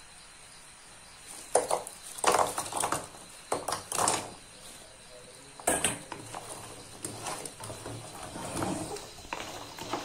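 Wooden spatula scraping and knocking against a pan while stirring fried dough pieces through sugar syrup. It comes as a string of sharp scrapes and knocks from about a second and a half in, thinning out after about six seconds.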